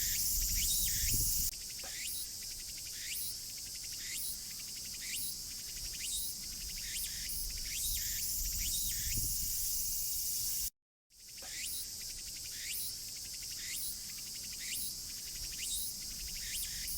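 A tsukutsukuboushi cicada (Meimuna opalifera) singing. Its call repeats a short rising-and-falling phrase over and over, over a steady high-pitched hiss, and cuts out briefly to silence a little past halfway.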